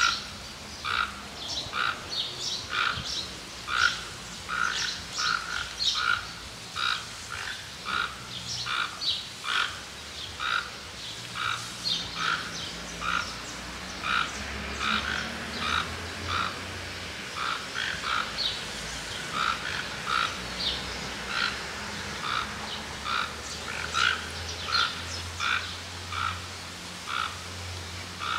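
Toco toucan calling: a long, even series of short, rough calls, about two a second.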